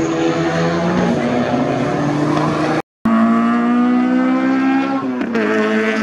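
Car engines running hard through a racetrack chicane, two cars one after the other with an abrupt cut between them about halfway through. The second engine's pitch climbs, drops sharply at a gear change, then holds steady.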